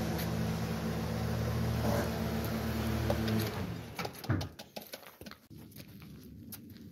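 A steady low machine-like hum stops about three and a half seconds in. After it come scattered light taps and pattering of footsteps on dirt.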